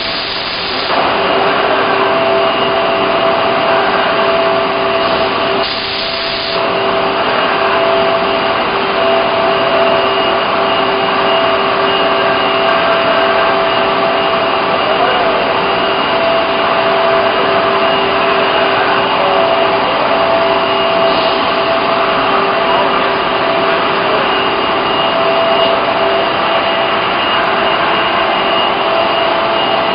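CNC plasma cutting torch cutting a steel dished head: a loud, steady hiss with a steady whine over it, dipping briefly about six seconds in.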